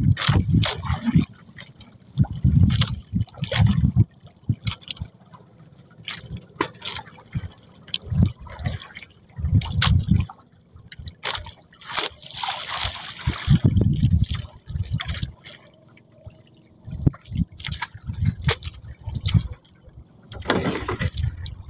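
Water sloshing and slapping against a small boat's hull, with irregular low thumps every second or two and a few brief splashes.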